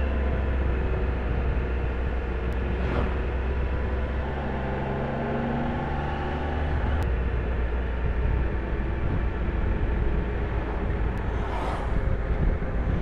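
Triumph Trophy 1200SE's inline three-cylinder engine running under way, its pitch shifting a few times, over a steady low wind rumble. Two brief whooshes come through, one a few seconds in and one near the end.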